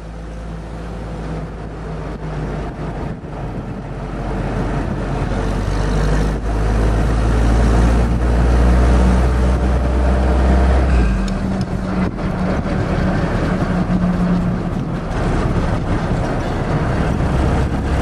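A WWII Jeep's four-cylinder engine running as the Jeep drives along, heard from inside the open vehicle over wind and road noise. The sound fades up over the first few seconds. The steady low engine hum falls away about eleven seconds in and comes back near the end.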